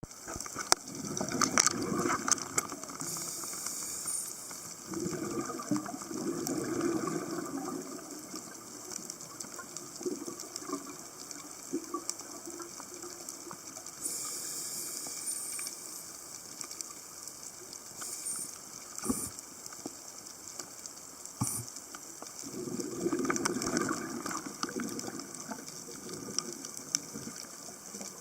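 Water gushing and bubbling in uneven surges, with a few sharp clicks.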